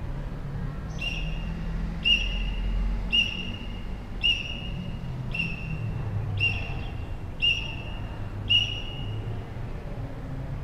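A whistle blown from about 30 meters away in eight short, high blasts about a second apart, over a steady low rumble.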